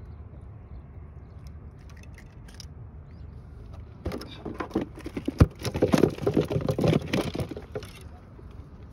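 A caught fish being handled and put into a plastic ice cooler: about four seconds in, a burst of clattering and rattling with one sharp knock, lasting about four seconds.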